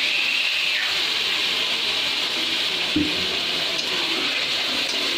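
Mutton and masala sizzling with a steady hiss in a hot steel kadai just after a little water has been added, as the meat is stirred. A spatula knocks once against the pan about three seconds in.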